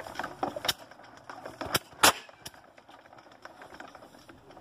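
1918 Gnome rotary aircraft engine, its propeller swung by hand, firing a few times in a ragged string of sharp bangs over about two and a half seconds, the loudest about two seconds in, then dying without catching. The engine has not run in two years and is reluctant to start.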